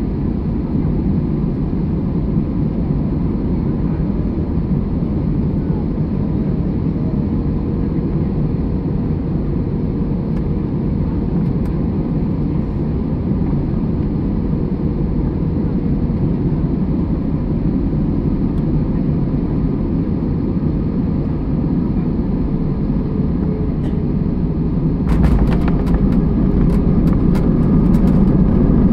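Steady cabin noise of an Airbus A320 heard from a window seat during the landing. About 25 seconds in, a heavier low rumble sets in with rattling clicks and grows louder: the wheels touching down and rolling on the runway.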